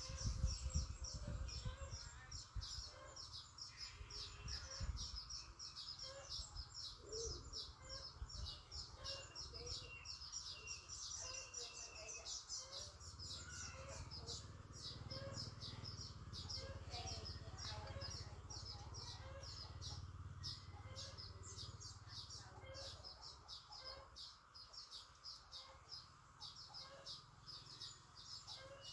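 Birds chirping in a continuous, dense chatter of quick high chirps, with some low bumps in the first few seconds.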